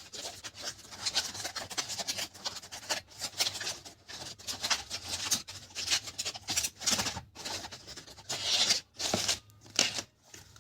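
Hands handling a charging cable's box and packaging: an irregular run of short rubbing, scratching and rustling sounds.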